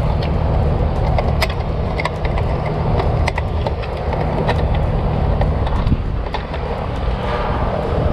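Clicks and rattles from the pull-out block and metal cover of an outdoor AC disconnect box as the shutoff is plugged back in, over a steady low rumble.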